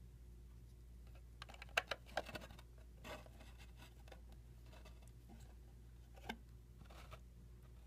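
Plastic toy ramp pieces clicking and tapping as a connector is pushed into its holes: a quick run of light clicks about two seconds in, then a few single clicks later on.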